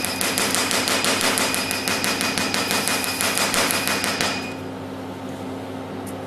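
IPL SHR hair-removal handpiece firing rapid repeated flashes: evenly spaced clicks at about six a second over a steady high whine, stopping suddenly about four seconds in. A low steady hum from the machine runs underneath.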